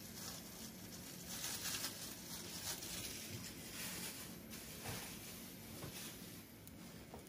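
Omelette frying in a nonstick pan, with a faint, irregular sizzle and crackle over a low steady hum.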